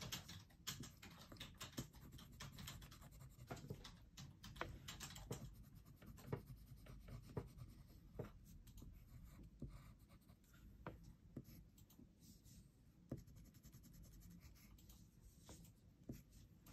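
Black colored pencil scratching across paper in many short, irregular strokes as it shades over blue pencil work; faint.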